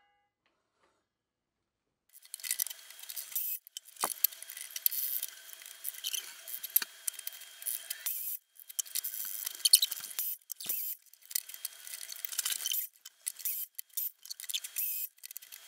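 Scraping, rustling and light clicks of a wooden board being slid and positioned on a miter saw's table, starting after about two seconds of silence and coming in short broken spells.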